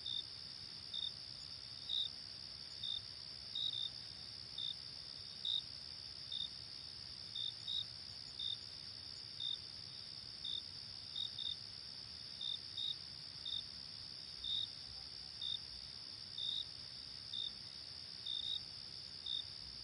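Night insect chorus: a steady high-pitched trill from crickets, with one cricket's short chirps repeating about once a second over it, some of them doubled.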